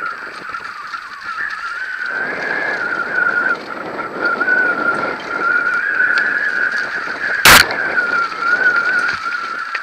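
Mountain bike running fast down a rough dirt trail: a steady, slightly wavering high whine sounds throughout over rattling tyre-on-dirt noise that grows from about two seconds in, with one sharp, loud knock about seven and a half seconds in.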